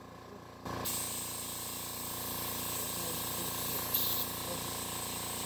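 Compressed air suddenly starts hissing through an EWK pneumatic vacuum oil extractor about a second in and keeps going steadily, pulling a vacuum to draw the engine oil out. There is a brief louder spurt of hiss about four seconds in, over a faint steady low hum.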